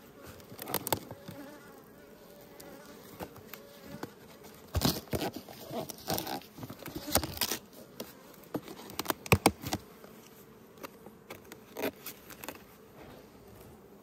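Honeybees buzzing around an opened nucleus hive, a steady hum, broken by repeated sharp scrapes and knocks as the hive is opened and its frames are worked.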